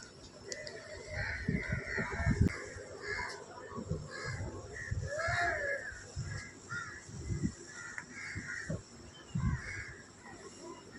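Crows cawing repeatedly, many short calls overlapping, over scattered low muffled bumps.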